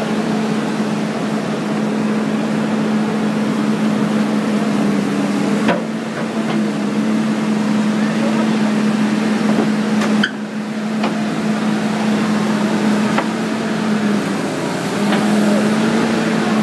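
Diesel engine of a Caterpillar 320D excavator running steadily with a constant drone, with a few short sharp knocks.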